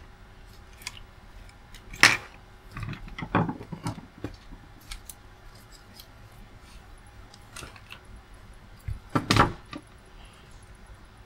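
Handling noise on a workbench: scattered clicks and light metallic clinks and rattles, with a few louder knocks about two, three and a half and nine seconds in.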